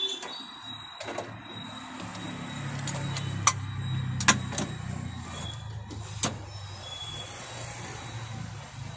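A low engine rumble that swells around the middle, with three sharp clicks over it.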